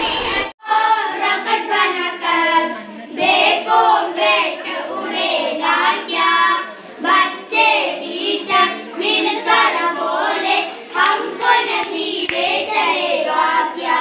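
A group of schoolboys singing a Hindi song together into a microphone. The singing cuts in about half a second in, after a brief break.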